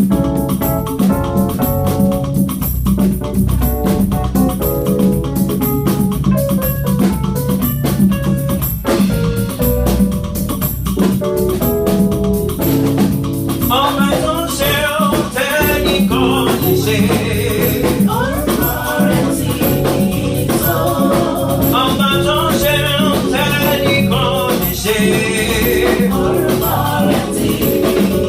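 Gospel praise music: organ-style keyboard chords over a steady drum beat, with singing voices coming in about halfway through.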